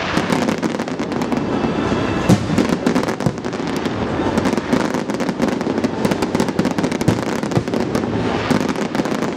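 Professional fireworks display: a dense run of rapid crackling pops and bangs from low-level crackle effects and bursting aerial shells, going on without a break.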